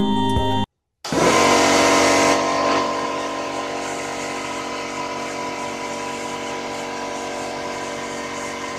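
Foxcot FL-24 2 hp air compressor switching on about a second in and running. It starts with a louder, hissier first second or so, then settles into a steady mechanical running drone.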